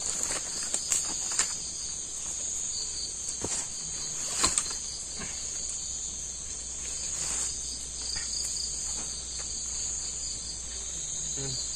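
Night insect chorus of crickets: a steady high-pitched drone, with a second insect pulsing about four times a second. A few sharp clicks and rustles sound near the start and about four and a half seconds in.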